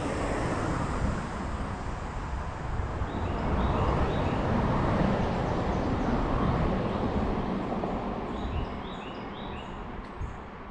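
A vehicle passing on the nearby road: a rush of tyre and engine noise that swells in the middle and fades away near the end. Small birds chirp in short runs twice over it.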